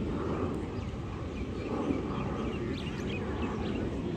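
A few short, high bird chirps about three seconds in, over a steady low outdoor rumble.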